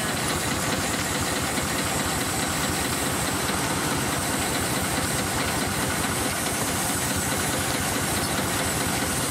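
Steam traction engine running steadily under load, belted to a circular sawmill: a continuous mix of the engine's fast, even beat and steam hiss with the clatter of the flat belt and the spinning saw.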